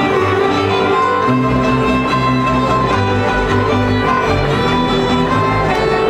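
Folk string band music led by fiddle, with a bass line moving under held melody notes, playing a dance tune.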